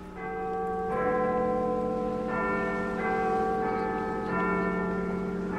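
Church bells ringing, several bells struck one after another about once a second, each tone ringing on over the next.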